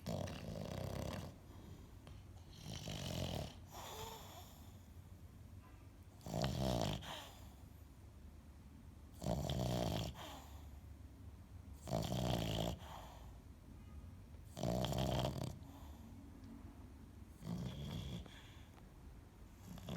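Sleeping dog snoring in a slow, regular rhythm: about eight snores, one every two and a half to three seconds, each lasting under a second.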